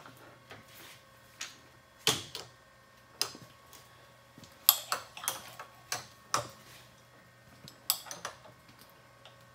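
Scattered light clicks and knocks of drill tooling being handled at a milling machine during a tool change, the loudest about two seconds in, over a faint steady hum.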